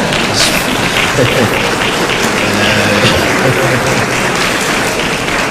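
Large audience applauding steadily, with a few voices among the clapping about halfway through.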